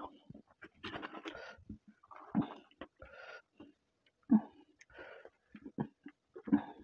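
Hand-eating sounds: fingers mixing rice on a plate and chewing, then a plate of rice lifted and tipped onto another plate, giving short scrapes and a few knocks, the loudest about four seconds in.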